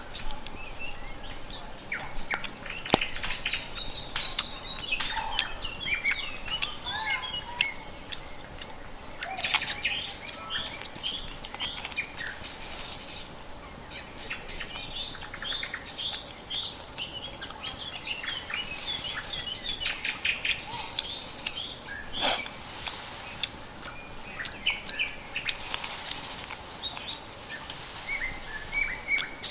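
Small birds chirping and calling over and over, many short high notes, over a steady outdoor background with scattered sharp clicks.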